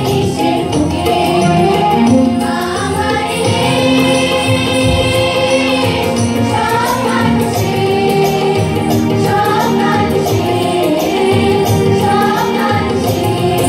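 A choir of girls singing together in long held notes, with live harmonium and keyboard accompaniment.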